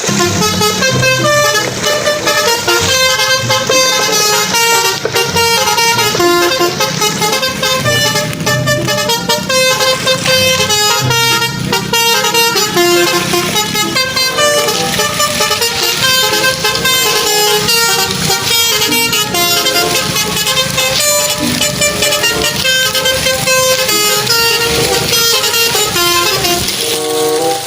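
Loud background music: a busy melody of quick, short notes over a steady beat.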